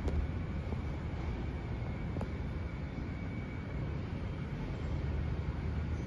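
Steady low outdoor rumble with a faint, constant high-pitched whine over it. Light clicks come at the start and about two seconds in.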